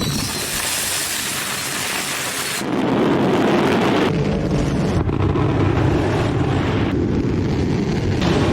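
Gunpowder explosions: a dense crackling hiss, then a louder low rumble about two and a half seconds in, with abrupt changes several times as cuts between explosion recordings.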